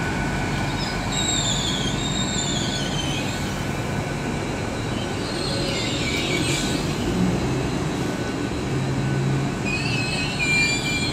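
Class 800 bi-mode train moving slowly through the station, its wheels giving high, wavering squeals three times over a steady low running hum.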